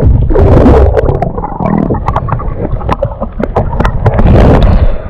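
Water churning and gurgling around a camera dunked underwater, a loud muffled rumble with scattered knocks and two louder swells, about half a second in and about four seconds in.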